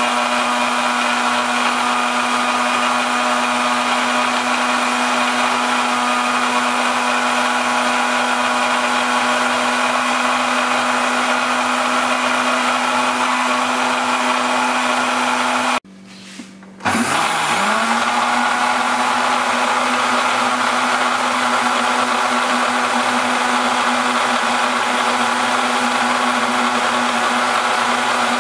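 Countertop juice blender motor running steadily at high speed, beating egg yolks, vinegar and oil into mayonnaise. About halfway through it cuts out for about a second, then starts again, its pitch rising as it spins back up to speed.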